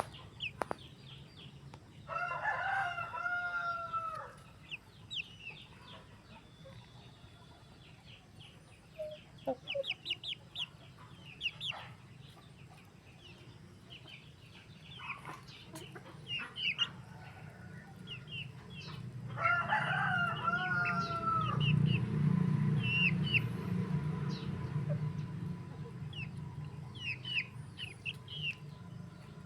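Rooster crowing twice, each crow about two seconds long, about two seconds in and again about twenty seconds in. Short high chirps and peeps of other birds are scattered throughout, over a steady low rumble that grows louder around the second crow.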